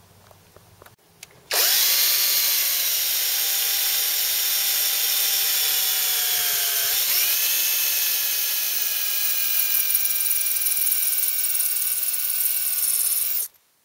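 Electric drill boring a 5 mm dowel hole into the aluminium cylinder head: the motor whine starts about a second and a half in, sags in pitch as the bit bites, picks up again about halfway through, and cuts off suddenly near the end.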